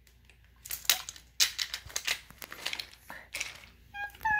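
Irregular small clicks, knocks and rustles, like wooden toy train pieces and track being handled and knocking together. Near the end a high, drawn-out voice-like call begins.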